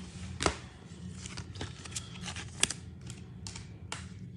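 Baseball trading cards being slid into plastic penny sleeves and rigid top loaders: a string of irregular light clicks and taps, the sharpest about half a second in and again about two and a half seconds in.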